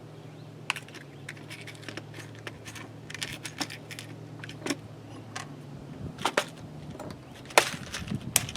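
Small plastic wire connectors clicking and rattling as two are picked out by hand: a string of sharp, irregular clicks, the loudest near the end.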